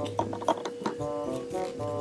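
Background music: a melody of short held notes over a steady tone, with a few sharp clicks.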